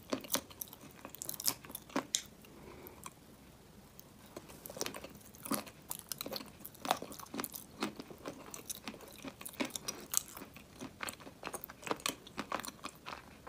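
Close-up eating: a dry, crunchy snack layered with cream being bitten and chewed. The sharp crunches go quiet for about two seconds a few seconds in, then come thick and fast again.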